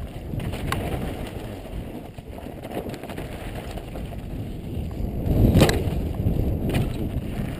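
Downhill mountain bike descending a loose dirt ridge, heard from a helmet-mounted camera: a steady rumble of wind on the microphone and tyres rolling over dirt, with the bike rattling. Sharp knocks come near the start and twice toward the end, the loudest about five and a half seconds in.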